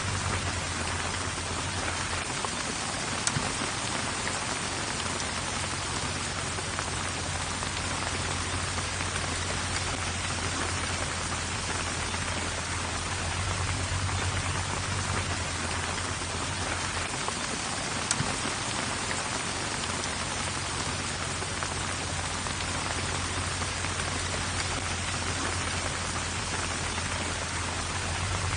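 Steady heavy rainfall, with a low rumble underneath that swells and fades. A couple of sharper drop hits stand out, one about 3 seconds in and one about 18 seconds in.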